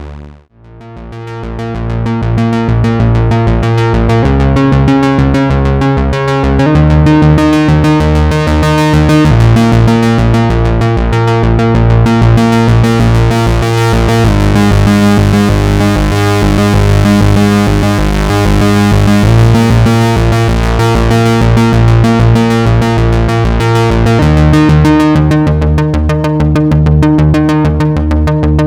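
Moog Source monophonic analog synthesizer playing a fast, repeating bass pattern with a deep low end. The notes retrigger rapidly, and the pattern shifts to a new pitch every two or three seconds.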